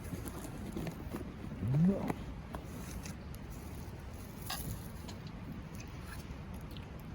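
A brief low voiced sound, rising in pitch, about two seconds in, over a steady background hiss with a few faint clicks.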